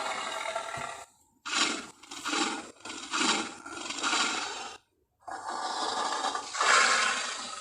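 Gorilla vocal sound effects: a long rasping call, then four short rough calls, then another long rasping call that swells near the end, each cut off sharply into silence.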